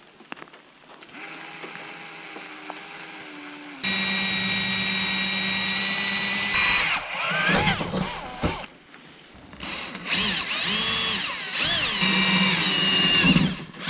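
Cordless drill with a 1/8-inch bit drilling pilot holes through a truck's sheet-metal hood. The motor hums softly at first, jumps to a loud steady whine about four seconds in, then its pitch rises and falls as the bit cuts, in two runs with a short pause between.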